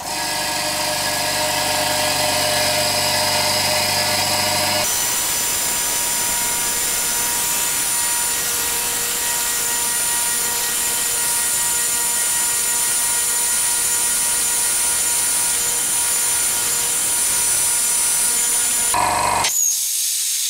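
Hyundai 50-litre oil-free air compressor switched on and running steadily, a loud low-noise machine hum as it fills the tank from empty. Near the end the motor stops and a hiss of released air follows as the tank reaches about 100 psi and the pressure switch cuts out.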